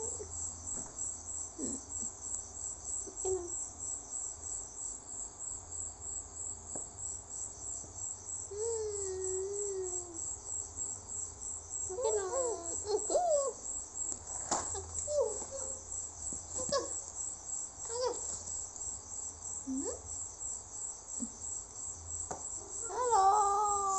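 Baby babbling and cooing in short gliding calls scattered through, loudest near the end, over a rapid, steady, high-pitched pulsing chirp.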